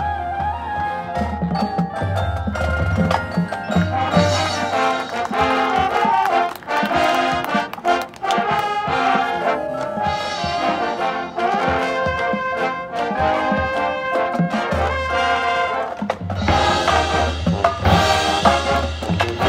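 High school marching band playing its field show: brass (trumpets and trombones) carrying the melody over percussion and a deep sustained bass, swelling fuller and louder near the end.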